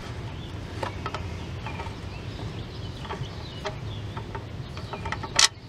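Scattered light metallic clicks and taps from a ratcheting wrench working the 13 mm oil-pan drain bolt loose, with a louder clatter about five and a half seconds in.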